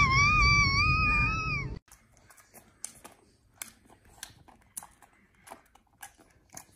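A long high-pitched wavering cry, held for nearly two seconds and cut off abruptly, then faint clicks about every half second.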